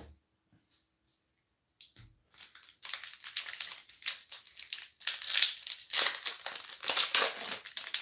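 Wrapper of a baseball card pack crinkling and crumpling as it is handled, a dense run of crackles starting about three seconds in.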